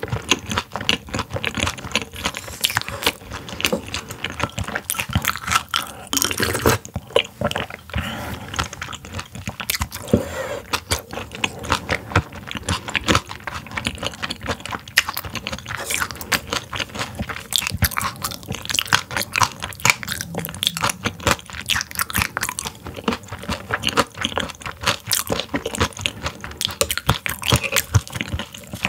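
Close-miked chewing of semi-frozen raw silver pomfret (butterfish) sashimi: a continuous run of crisp, wet crunches.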